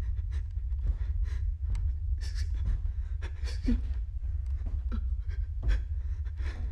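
Handling noise of a handheld camcorder being carried slowly: a steady low rumble with scattered clicks, rustles and a few short breathy sounds.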